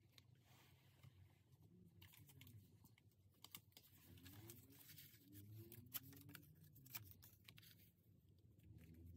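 Near silence, with faint scattered taps and paper rustles from hands pressing down and smoothing a freshly glued paper sheet on a journal page.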